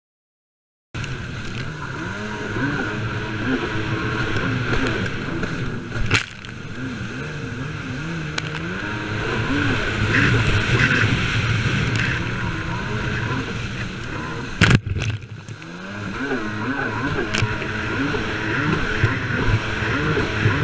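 Jet ski engine running at speed, its revs rising and falling constantly as it rides over chop, with the rush of water and spray. Two sharp hits stand out, about six and fifteen seconds in; after the second the engine drops off briefly and then picks up again.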